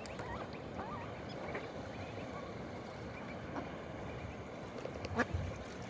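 Ducklings peeping faintly in the first second or so over a steady rushing background noise, with a single sharp knock about five seconds in.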